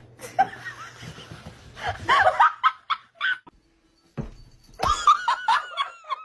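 A person laughing in two bouts of quick, short bursts: one about two seconds in and a higher, faster run near the end.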